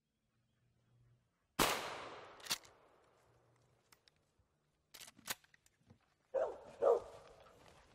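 A single sharp bang about one and a half seconds in, with a tail that fades over about a second, then a few light clicks. Near the end a mountain cur squirrel dog barks twice at a treed squirrel.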